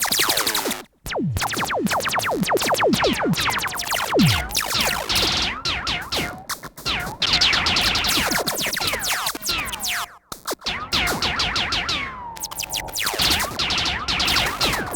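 Synthesized sci-fi laser blaster shots in rapid overlapping barrages, each a quick falling zap, mixed with warbling electronic tones. The firing breaks off briefly about a second in and again about ten seconds in.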